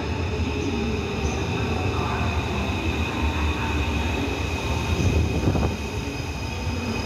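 Taipei Metro C341-type electric train pulling into an underground station: a steady rumble of wheels on the rails with a high whine above it, a little louder about five seconds in.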